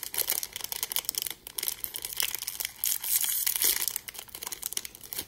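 Crinkly pink plastic accessory packet being torn open and unwrapped by hand, a dense run of crackles and rustles that swell twice in the middle.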